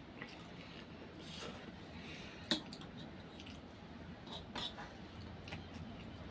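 Forks clinking and scraping on stainless steel plates of noodles, with wet slurping and chewing between. One sharp clink about two and a half seconds in is the loudest sound, with a couple more near the end.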